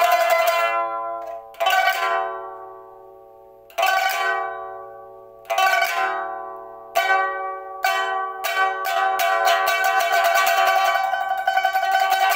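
Solo pipa played with the fingers. A rapid run of notes fades out, then four separate chords are struck across the strings, each left to ring and die away, before the strokes quicken and run together into a continuous tremolo.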